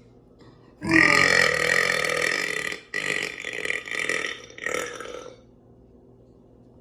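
A man's long, loud burp starting about a second in and lasting about two seconds, then going on in a few shorter burps that die away about five seconds in.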